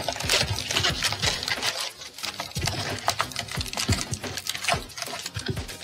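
Wrapped baseball card packs crinkling and rustling as they are handled and pulled out of a cardboard box, a continuous run of irregular crackles and light taps.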